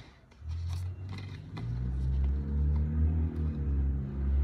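A low, steady engine-like drone starts about half a second in and grows louder. It is a motor or engine running in the background.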